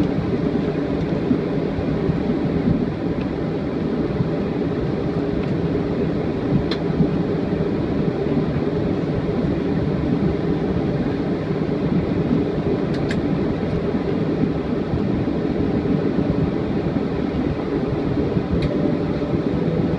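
Inside the cabin of a Boeing 737-400 taxiing after landing: the steady rumble of its CFM56 engines at taxi idle mixed with cabin air noise, with a few faint clicks.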